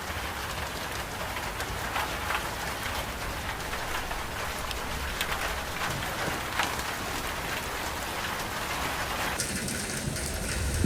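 Steady rain falling, with individual drops clicking sharply on nearby surfaces. The sound changes abruptly near the end.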